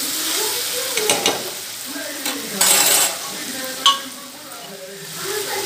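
Boiled horse gram, garlic and green chilli sizzling in oil in a metal kadhai while a steel spoon stirs them, scraping and clicking against the pan. A louder scrape comes about three seconds in and a sharp clink just before four seconds. The sizzle eases for about a second after that, then picks up again.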